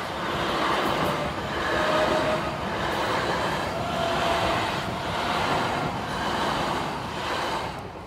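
A c2c electric passenger train passing close by, a steady rumble and rattle of wheels on rails that swells and eases every second or so. It falls away near the end as the last carriage clears.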